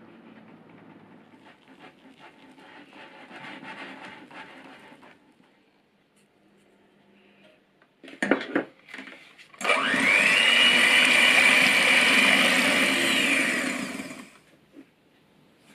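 Wire whisk stirring batter in a glass bowl, then a couple of clinks. About ten seconds in, an electric hand mixer starts with a rising whine, runs steadily for about four seconds beating egg whites for a meringue, and cuts off.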